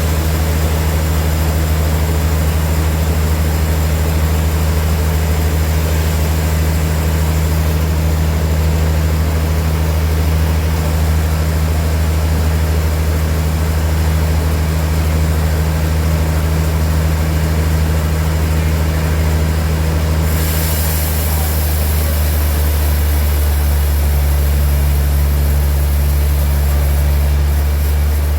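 Large sawmill machinery running steadily with a deep, even hum. About two-thirds of the way through a high hiss joins the hum.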